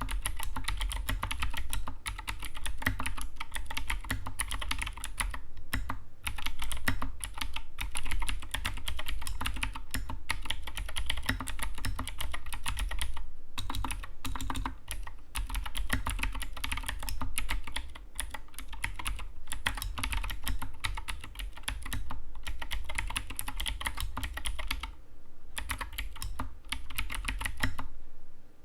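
Fast, continuous typing on an Anne Pro 2 mechanical keyboard: a dense stream of key clicks, with a few brief pauses.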